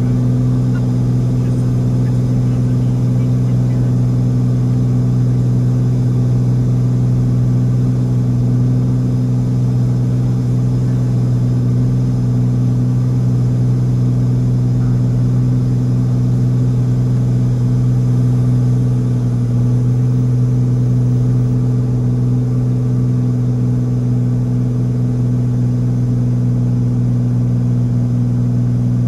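Single-engine light aircraft's engine and propeller droning steadily, heard from inside the cockpit, with a low, even pitch that does not change.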